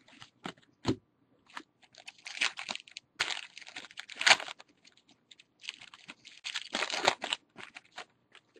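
Foil trading-card pack wrappers crinkling and cards being handled, in two rustling spells with a few light clicks between them.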